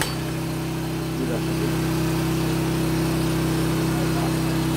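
An engine runs steadily at idle, giving a constant low hum.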